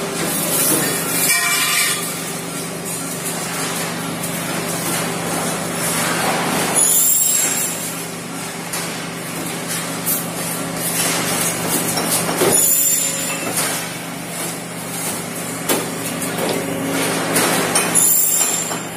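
CNC pipe punching machine running: a steady machine hum, with a punching cycle about every five to six seconds. Each cycle is marked by a burst of noise like air being let out and a brief high squeal.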